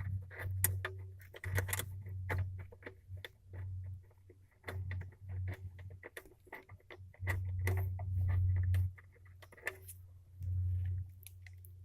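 Irregular clicks and clinks of small metal seatbelt-anchor hardware, a bolt and a tabbed washer, being handled and fitted, with intermittent dull rumble from hands working close by.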